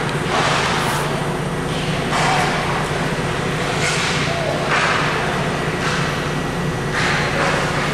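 Ice hockey game sounds: skate blades scraping the ice in short rushing bursts every second or two, with a sharp knock about a second in, over a steady low hum.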